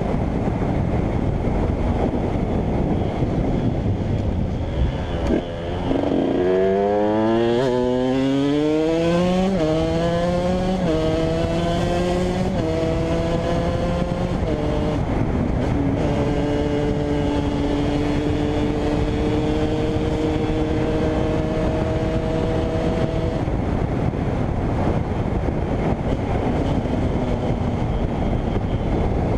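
KTM 125 EXC's single-cylinder two-stroke engine on the move: the revs climb in several steps, each rise cut by a gear change, then hold steady for several seconds before the engine eases off near the end, with a constant rushing noise underneath.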